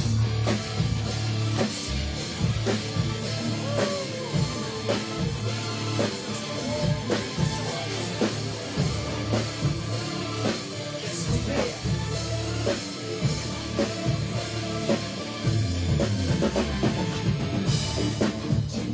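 A live rock band playing an instrumental passage, the drum kit loudest with steady kick and cymbal hits over bass and electric guitar.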